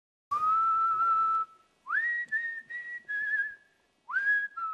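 A person whistling a short tune in three phrases: a long held note, then two phrases that each start with a quick upward slide into a held note, followed by a few shorter notes.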